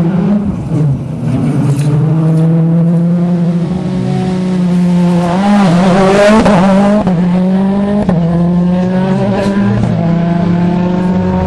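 Rally car engine accelerating hard, its note climbing through several gear changes. It is loudest as the car passes close about six seconds in.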